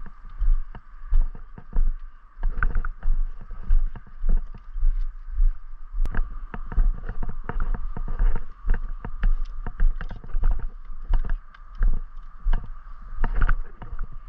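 Footsteps of a person walking at a steady pace along a dirt trail through scrub, with clothing, gear and brushed branches rustling, about one to two steps a second.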